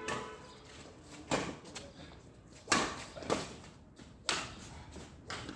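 Badminton rackets striking the shuttlecock during a doubles rally: a run of about five sharp smacks, roughly a second apart.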